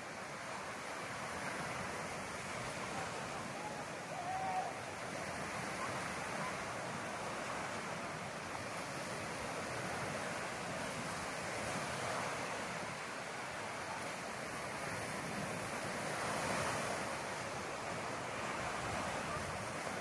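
Ocean surf: a steady wash of waves on the shore that swells a couple of times. A brief short tone sounds about four seconds in.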